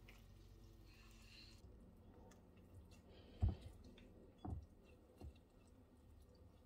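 Silicone spatula folding milk-soaked bread pieces in a glass bowl: faint, with three soft knocks about three and a half, four and a half and five seconds in, the first the loudest.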